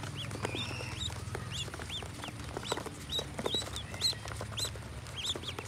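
A group of ducklings peeping, short high rising-and-falling peeps a few times a second, with soft taps as they peck grain from a hand, over a low steady hum.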